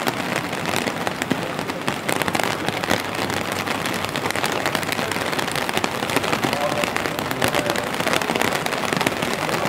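Steady rain pattering and dripping, with many close, sharp drop ticks over a constant hiss.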